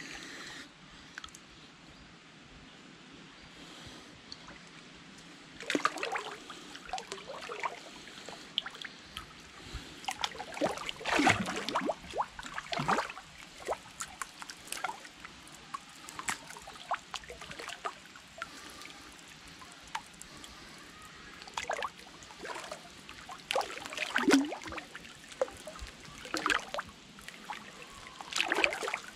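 Thin liquid mud sloshing and splashing as a body moves through it. It is quiet for the first few seconds, then comes in irregular wet splashes of varying loudness.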